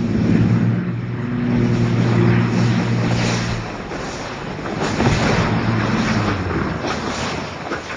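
Aircraft engine drone, a steady low hum under wind rushing on the microphone; the hum fades after about four seconds and the rushing noise carries on.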